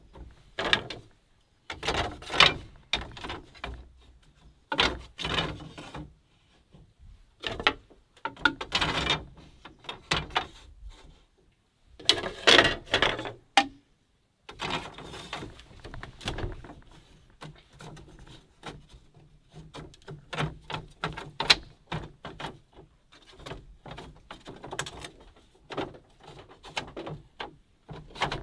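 Split bamboo slats clattering and knocking against one another and against the bamboo chair frame as they are laid across the seat and pressed down. The sound comes in short bursts of dry clicks with pauses between, and turns to lighter, quicker clicking about halfway through.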